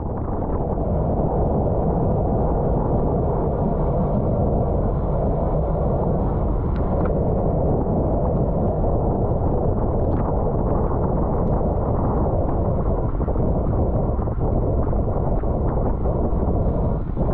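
Steady wind rumble buffeting the bike-mounted camera's microphone at race speed, with road and tyre noise underneath.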